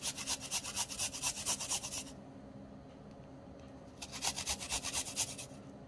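Garlic cloves grated on a flat stainless steel hand grater: quick rasping strokes of metal teeth scraping through the clove, in two runs with a pause of about two seconds between them.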